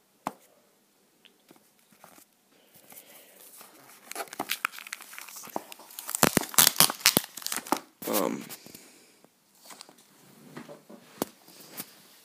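Packaging of an Apple Magic Trackpad box being torn and crinkled by hand, in scattered crackles and rips. They start after a couple of quiet seconds and come thickest in the middle.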